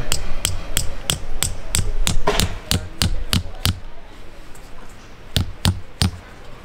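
A quick run of sharp knocks, about three a second, stopping after about four seconds, then three more strikes near the end.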